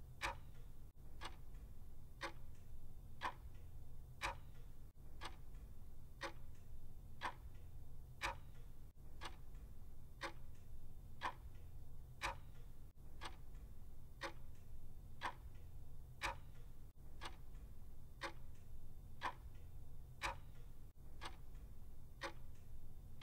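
Clock ticking steadily, one tick a second, over a faint low hum.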